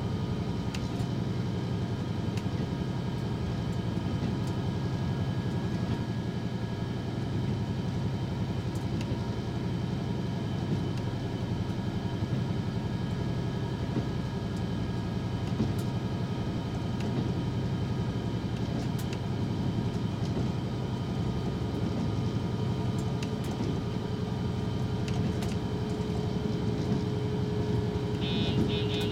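Diesel railcar running steadily, heard from inside the front cab: an even rumble of engine and wheels on rail with several constant humming tones. Another steady hum grows louder near the end.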